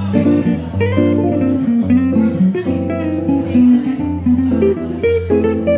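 Epiphone hollow-body archtop electric guitar played live in a jazz style, with melody notes and chords over sustained bass notes.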